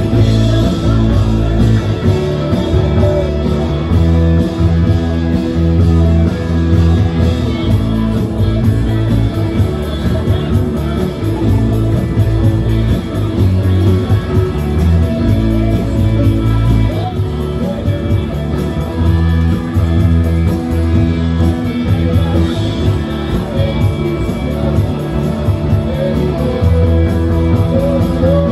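Live country band playing loudly through a stage PA: electric guitars, drums and keyboard, with a voice singing over them.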